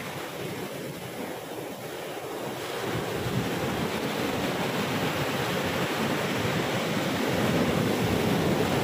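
Sea surf breaking and washing in foam up the sand, a steady rush that grows louder over the first few seconds.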